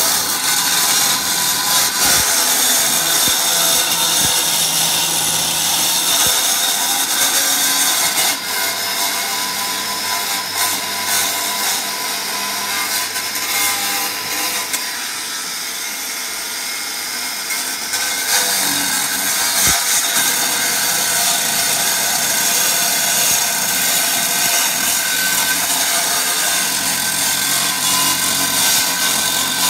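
Corded angle grinder cutting through a concrete slab, a steady grinding whine of the disc in the concrete that eases a little for several seconds in the middle before running at full load again.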